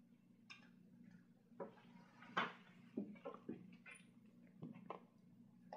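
A cat eating dry kibble from an automatic feeder's bowl: faint, irregular crunches and clicks of kibble against the bowl, over a steady low hum.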